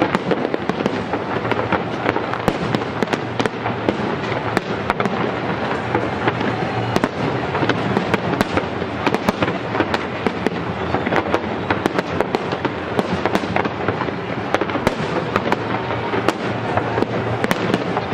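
Aerial fireworks shells bursting continuously: a dense run of bangs and crackles, one on top of another, over a steady rumble.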